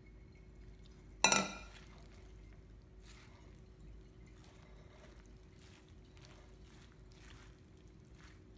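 A stainless steel mixing bowl clanks once about a second in, with a short metallic ring. After it, faint soft rustling of shredded cabbage slaw being tossed with a silicone spatula.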